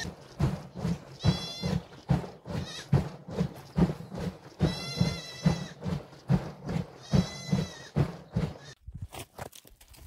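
Goats bleating: three high, quavering bleats, over a quick run of dull knocks and thumps.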